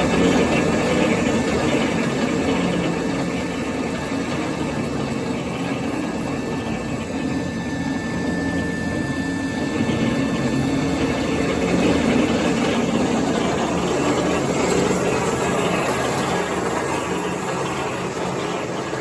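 Marvel Series 8 Mark II vertical band saw running on a variable frequency drive: a steady mechanical hum from its motor, pulleys and blade. The saw is being taken through its speed range, and the sound eases off and then builds again.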